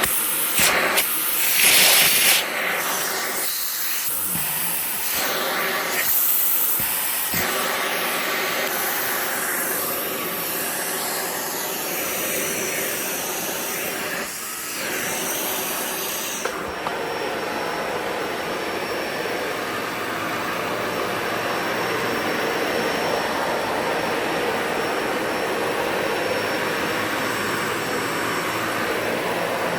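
A brand-new Dyson Ball Animal 2 Total Clean upright vacuum cleaner running as it vacuums for the first time: a loud, continuous motor and airflow noise. It is uneven over the first few seconds, then about halfway through it settles into a steadier, duller tone.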